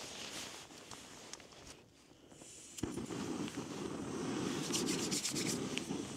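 Small backpacking gas stove being lit: handling and scraping around the stove, then about three seconds in a sharp click as it lights and the burner starts a steady rushing hiss that carries on, with a few light clicks near the end.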